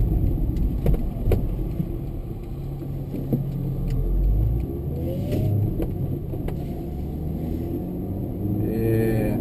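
VW Fox's 1.0-litre four-cylinder engine running under way, heard from inside the cabin, its note climbing about halfway through, with a few scattered knocks.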